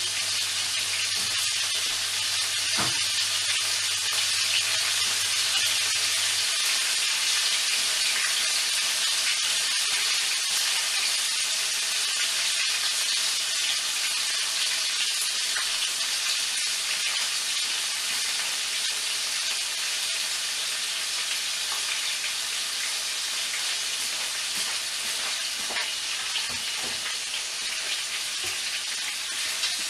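Pieces of chicken frying in a pan, a steady sizzle, with a few faint knocks near the end.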